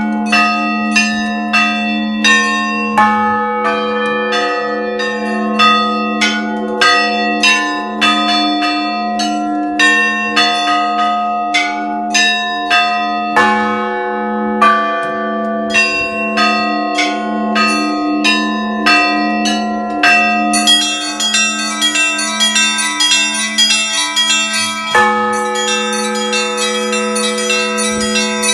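Russian church bells rung as a peal: a low bell's hum holds steady beneath strikes of middle bells about twice a second, and about twenty seconds in the small bells join with fast, dense, high chiming.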